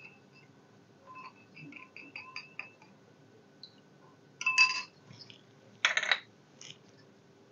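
Steel spoon stirring milk and curd in a glass bowl, clinking against the glass: a run of light taps in the first half, a ringing clink about halfway through, and a short scraping rattle about six seconds in.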